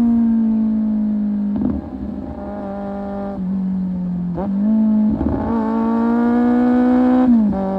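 Kawasaki Z750 inline-four engine through an Akrapovic exhaust, running under way. Its note sags slowly at first, then drops and picks up again about three times with the throttle.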